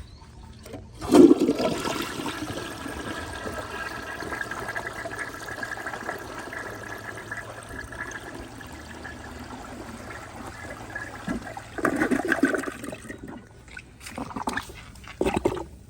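Crane Santonia toilet flushing a rag through: the flush starts suddenly about a second in, water rushes steadily for about ten seconds, and a louder surge near the end marks the bowl siphoning out. This time the rag clears the trapway, which is otherwise prone to snagging rags at a tight bend.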